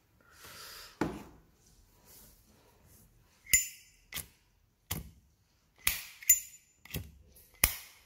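A vintage 1950s Zippo lighter's metal lid being flicked open and snapped shut, giving about seven sharp metallic clicks in the second half, several with a bright ringing ping. Earlier there is a brief soft rasp and a single click.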